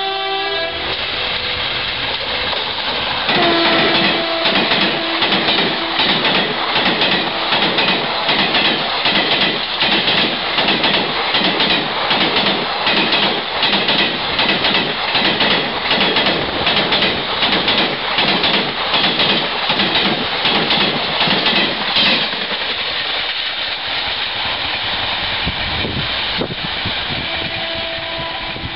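Express passenger train of blue coaches running through at high speed behind an electric locomotive, its wheels clattering rhythmically over the rail joints for about twenty seconds, then fading away as the last coach passes. A horn sounds at the very start, a lower horn note is held for a few seconds soon after, and a horn note comes again faintly near the end.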